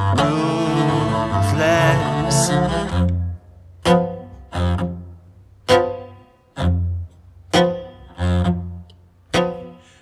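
Cello playing a sustained passage that thins about three seconds in to separate single notes, roughly one a second, each dying away.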